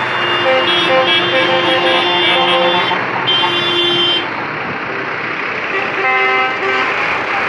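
Heavy trucks pass slowly with their diesel engines running, sounding their horns: a string of short toots over the first three seconds, a longer blast about three seconds in, and another short one about six seconds in.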